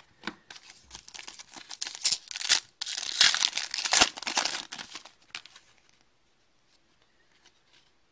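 Foil wrapper of a 2010-11 Panini Pinnacle hockey card pack being torn open and crinkled by hand, a dense crackling that is loudest in the middle and stops about six seconds in.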